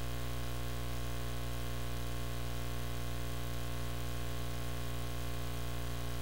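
Steady electrical hum with a constant hiss over it, with no programme sound, the kind of mains hum and static left on a capture of a TV or VHS recording once the audio has stopped.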